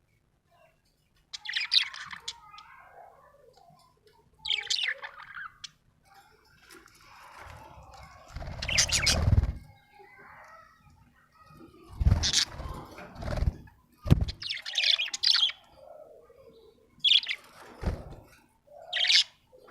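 Budgerigar chirping in short high bursts every few seconds, mixed with several louder, rougher bursts of rustling or wing flutter, the loudest about nine seconds in.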